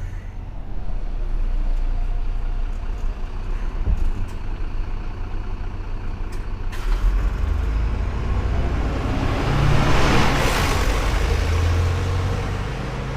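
City bus accelerating away from a bus stop under full load, heard from the sidewalk. The engine noise grows louder and peaks about ten seconds in as the bus draws level. A sudden hiss starts about seven seconds in.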